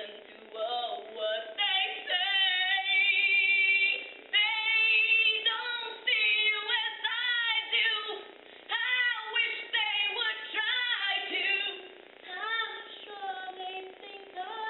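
A woman singing solo with no accompaniment, holding some long notes between shorter phrases.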